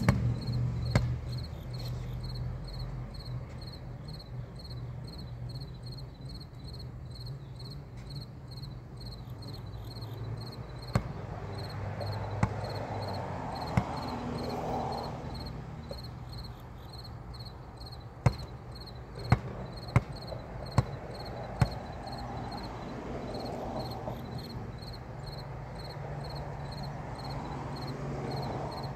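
Basketball bouncing on a concrete court: a few separate bounces, then a run of five dribbles about a second apart a little past the middle. Insects chirp steadily in a high, evenly pulsing pattern underneath.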